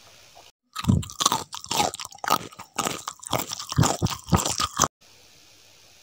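Loud close-up crunching and chewing of crisp food: a quick, irregular run of bites and crunches that starts and stops abruptly.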